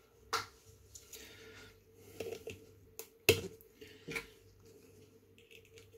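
A few small, sharp clicks and taps, the loudest about three seconds in, from 9-volt batteries and a clip lead being handled to build a ten-battery series pack for anodizing titanium.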